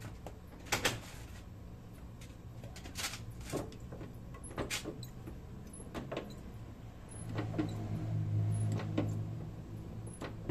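Scattered metallic clicks and scrapes from a car's brake assembly as it is worked, with a low, steady groaning hum for about two seconds some seven seconds in. The noise comes from the brake's small spring catching.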